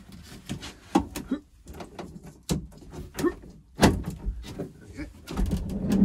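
Peugeot Boxer van's sliding door being worked against its newly fitted deadbolt: a string of irregular clunks and knocks from the door and latch.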